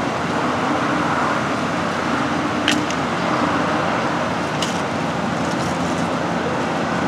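Steady outdoor background rush of road traffic, with a faint hum and two short clicks partway through.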